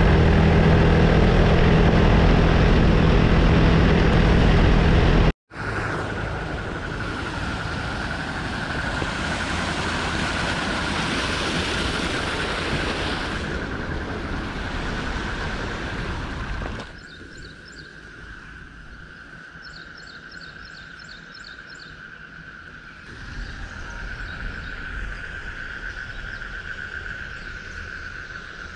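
A motorbike engine running steadily while riding, which cuts off abruptly about five seconds in. Outdoor ambience follows: a steady rushing noise with a constant high drone of insects. The rushing then drops away, leaving the insect drone and a few faint chirps.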